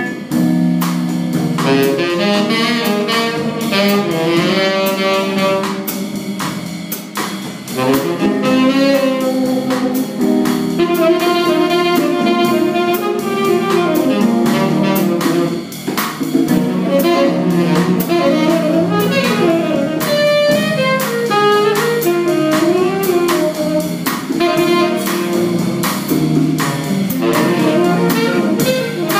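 Live tenor saxophone solo over a bossa nova rhythm, with conga drums and the rest of a small jazz band keeping time underneath.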